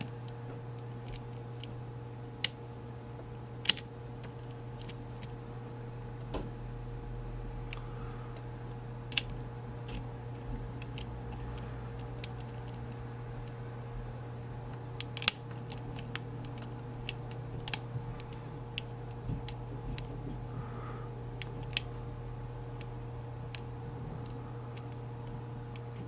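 Hook pick working the pins of an Evva DPI cylinder lock under tension: scattered small metallic clicks and ticks as the pick lifts pins and scrapes past the warding, a few louder sharp clicks near the start and about midway. Under them runs a steady low hum.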